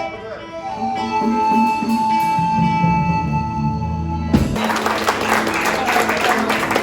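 Highland bagpipes playing over their steady drones, ending the tune on a long held high note; the pipes stop suddenly about four seconds in and applause breaks out.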